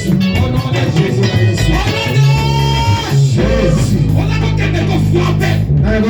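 Band music with a guitar and a bass guitar playing held bass notes that change every half second or so.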